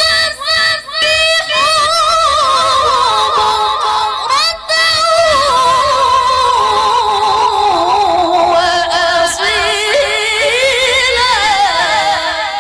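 A woman's voice reciting the Quran in melodic tilawah style, ornamented with heavy vibrato. A few short phrases open it, then comes one long unbroken melismatic line that slowly sinks in pitch, rises again near the end and fades away.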